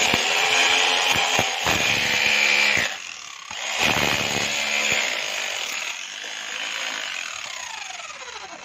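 A power tool running loudly, dipping briefly about three seconds in and picking up again, then winding down, its whine falling steadily in pitch over the last two seconds as it spins toward a stop.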